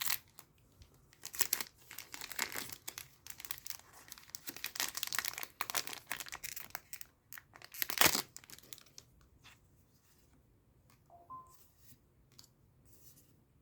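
A trading-card booster pack wrapper being torn open and crinkled, with one loud crackle about eight seconds in; the crinkling fades after about nine seconds.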